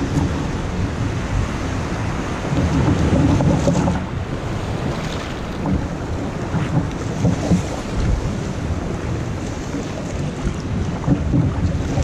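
Wind buffeting the microphone over sea water splashing against a kayak's hull as it is paddled through choppy water, with surf behind. The noise swells louder for a stretch about three seconds in.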